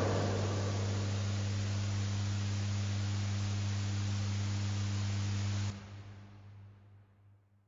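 Steady low electrical hum with hiss from the recording chain, left after the recitation ends; it drops away suddenly about six seconds in and fades to silence.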